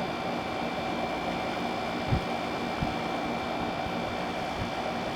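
Small General Electric air conditioner running with compressor and fan on, blowing cold air: a steady, smooth, quiet hum and rush of air with a faint high tone. There are a couple of soft low bumps about two and three seconds in.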